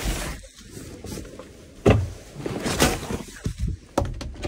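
Hands rummaging through a packed duffel bag: rustling with a few sharp knocks and thumps as things inside are shifted, the loudest about two seconds in. Near the end a flexible plastic cutting mat is pulled out.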